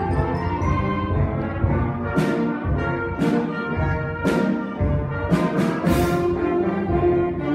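School concert band of woodwinds, brass and tuba playing a piece together in sustained chords, with sharp accents about once a second.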